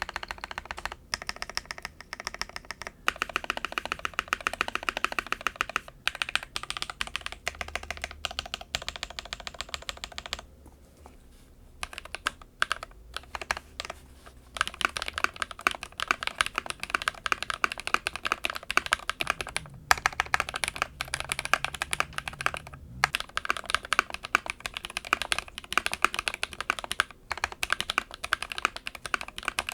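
Fast typing on an Akko ACR 75 mechanical keyboard with an acrylic case and FR4 plate: a dense, clacky patter of keystrokes, easing to scattered single presses for a few seconds around the middle before picking up again.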